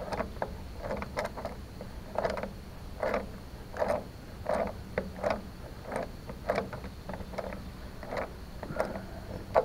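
Hand wrench being worked on a fuel-line fitting of a 1967 Zetor tractor, with about fourteen short clicking strokes roughly one every two-thirds of a second, as the fitting is tightened to stop a fuel leak.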